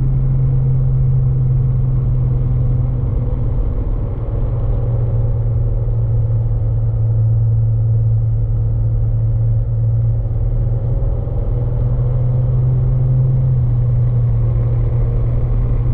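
Light aircraft's piston engine and propeller droning, heard on board a Van's RV-6A, as a steady strong low hum with small dips in loudness about four seconds in and again around ten to eleven seconds.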